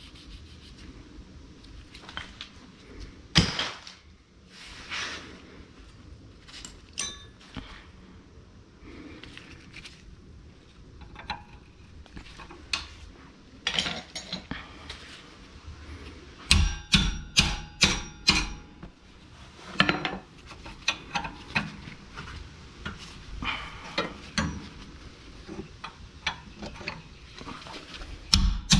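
Metal hand tools clinking and knocking against metal parts, scattered irregularly, with a quick run of louder, sharp knocks about two-thirds of the way in.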